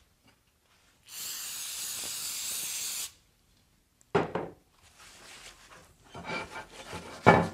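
Aerosol can of Würth multi-purpose solvent spraying in one steady burst of about two seconds. About a second later there is a sharp knock, then paper towel rubbing over the aluminum chill plate, with another loud knock near the end.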